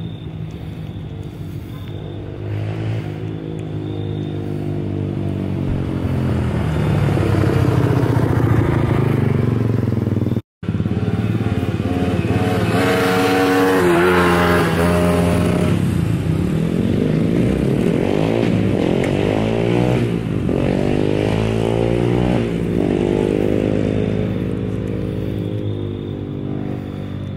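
An engine running, its pitch slowly falling and rising over several seconds, with a brief cut-out about ten seconds in.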